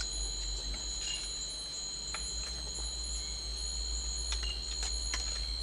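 A steady night chorus of forest insects, crickets or similar, with a continuous high-pitched trill and a few light clicks.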